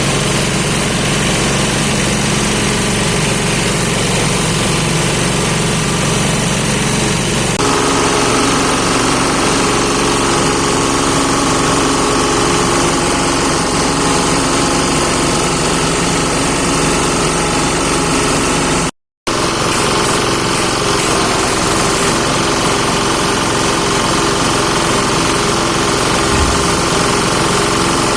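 Livestock feed chopper machine running steadily with a loud mechanical drone. Its tone shifts higher about a quarter of the way in, and the sound cuts out for a split second about two-thirds of the way through before carrying on.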